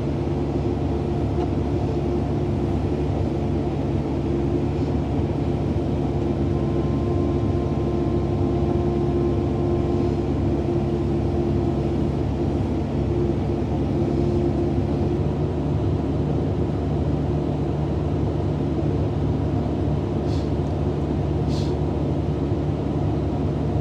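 A vehicle engine running steadily at an even speed, its pitch unchanging. Two faint clicks near the end.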